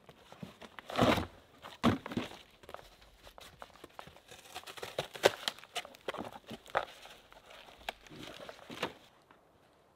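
Cardboard boxes being handled and torn apart: irregular crinkling, rips and crunches, the loudest about a second in and again just before two seconds, dying away near the end.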